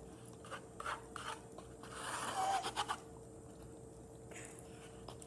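Small plastic toy figure parts being handled and pressed together: faint rubbing and scraping with a few light clicks, and a louder scuffing stretch about two seconds in.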